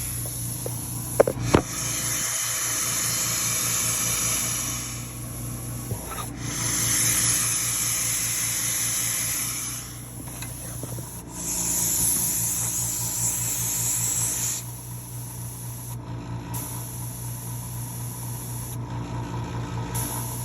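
Portable tire inflator's small compressor running steadily with a fast, even pulsing, pumping air into a car tire. A hiss swells and drops several times, and there are two sharp clicks about a second and a half in.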